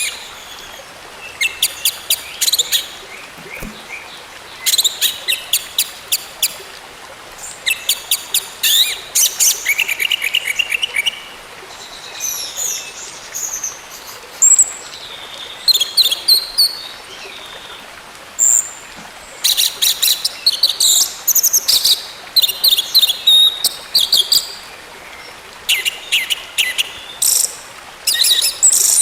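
Orange-headed thrush singing: repeated bursts of rapid chattering notes with short high whistles in between, over a steady background hiss.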